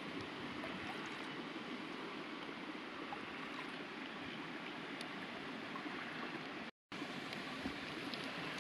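A small creek running: a steady, even rush of flowing water, broken by a brief dropout about seven seconds in.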